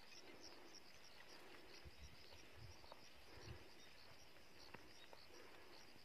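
Near silence with faint insects chirping in a quick, even rhythm in the grass, and a few soft low bumps.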